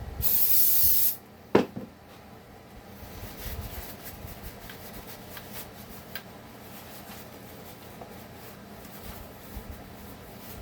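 Aerosol cleaner sprayed in one hissing burst of about a second, then a single sharp knock. Quieter rubbing and handling sounds follow.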